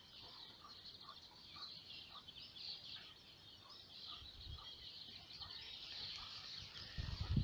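Faint chorus of many small songbirds singing together, a dense stream of high chirps and trills, with a low rustle near the end.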